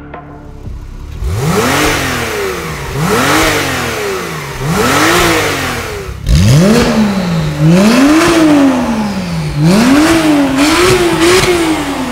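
Porsche 991 Carrera 4's flat-six engine revved through its exhaust in a series of sharp blips, each rising and falling. There is a brief break about six seconds in, and the later blips are louder and come closer together.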